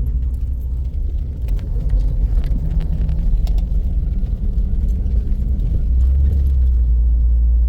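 Vehicle engine running with a low, steady rumble, which grows steadier and a little louder about six seconds in.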